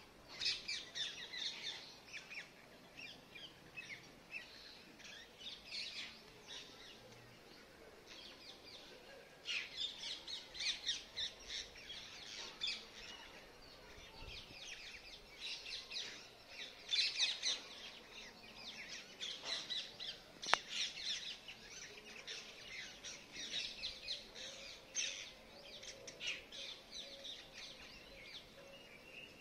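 Birds chirping in quick runs of short high notes that come and go in bursts, with one sharp click about twenty seconds in.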